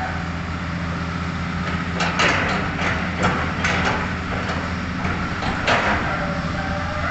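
Hitachi Zaxis 5G-series hydraulic excavator's diesel engine running steadily. From about two seconds in to about six seconds, a series of sharp cracks and knocks comes from the bucket as it digs into brush and debris.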